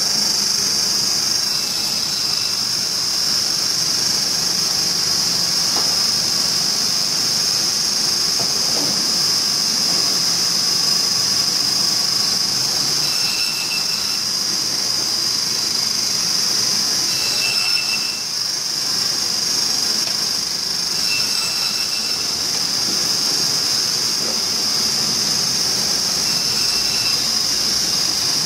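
Meat band saw running with a steady high-pitched whine as its blade cuts through bone-in beef ribs. A few short squeals break in during the second half.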